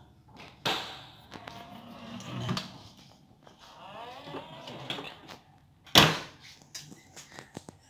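A room door with a broken lock being worked open: clicks and rattles of the latch and handle, then a loud bang about six seconds in, followed by a few lighter clicks.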